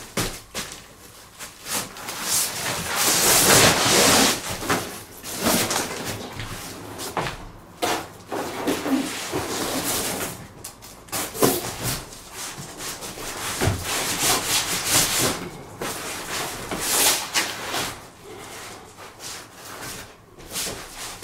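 Large black plastic sheet rustling as it is unrolled, shaken out and dragged across a floor, in several long rushes of noise with a few sharp knocks between them.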